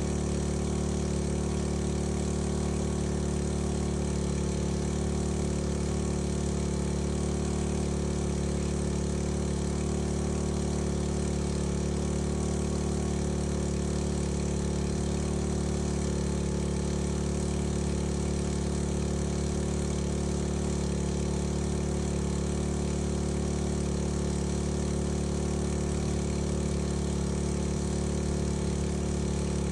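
Engine-driven fire pump running steadily at a constant speed, drawing water from a tank to feed a firehose.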